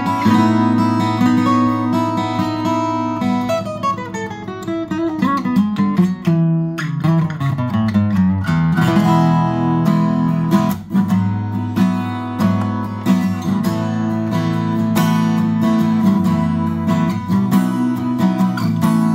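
Tokai-built 1970s Cat's Eyes CE-400 dreadnought acoustic guitar, solid top with Indian rosewood back and sides and 11-gauge strings, played by hand with ringing strummed and picked chords. About four seconds in, a descending run of notes walks down before the chords return.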